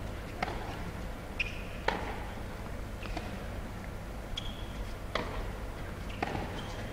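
Tennis ball struck back and forth by rackets in a baseline rally: about five sharp hits a second or two apart, echoing in a large indoor arena, with a few short high squeaks in between.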